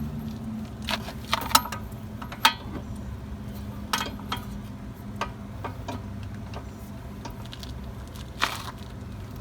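Socket wrench working a front brake caliper bracket bolt to break it loose, giving a few irregular sharp metallic clicks and knocks over a low steady hum.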